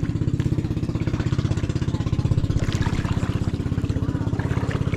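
Small boat engine running steadily with a fast, even chugging pulse.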